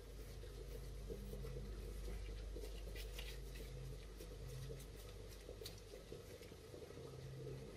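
Faint squishing and rustling of a disposable-gloved hand squeezing and scooping a soft mashed-potato mixture, with a few soft crackles from about three to six seconds in, over a steady low hum.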